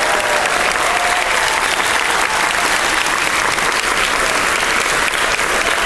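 Audience applauding steadily, with one person's hands clapping close by.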